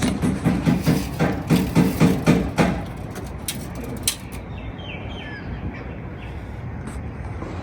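A quick run of knocks, about three or four a second, for nearly three seconds, then a single sharp click; birds chirp in the second half.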